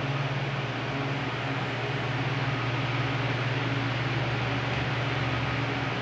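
Mallory Delfos TS electric fan running with a steady rush of air over a low motor hum, oscillating on its newly replaced oscillation gearbox.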